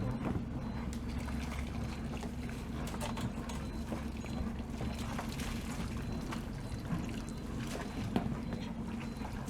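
Water trickling and splashing over a steady low hum, with scattered small knocks.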